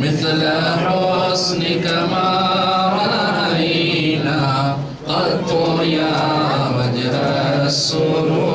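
A group of men chanting salawat, blessings on the Prophet, together in long held melodic phrases, with a short breath break about five seconds in.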